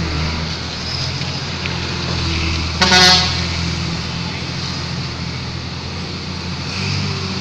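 Heavily loaded diesel truck engine running steadily, with one short horn toot about three seconds in.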